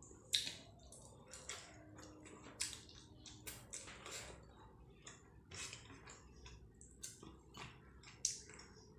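Eating rice and curry by hand: irregular wet mouth clicks and smacks of chewing, with fingers squishing and mixing rice on a plate. The sharpest smacks come about half a second in and near the end.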